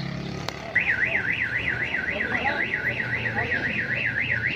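Electronic car-alarm siren warbling up and down about four times a second. It starts suddenly about a second in.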